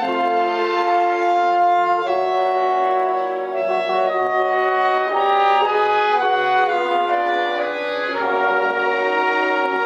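Live symphony orchestra playing a classical piece: held chords with winds and strings, the harmony shifting every second or so.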